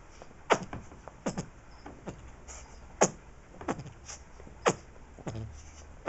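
Puppy biting and squeezing a squeaky toy with its squeaker taken out, forcing air out in short fart-like noises. There are about seven of them, each dropping quickly in pitch.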